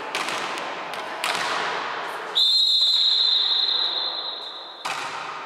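Volleyball referee's whistle blown in one long, steady, high blast of about two and a half seconds, signalling the serve. A sharp thud of the ball being struck comes just as the whistle stops, with other ball thuds earlier.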